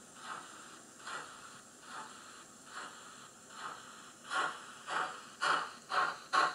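Sound-decoder steam exhaust chuffs of a Graham Farish N gauge N Class locomotive, played through a Loksound Micro decoder's sugar cube speaker. The chuffs come about one a second at first, then about four seconds in they quicken to roughly two a second and grow louder as the locomotive picks up speed.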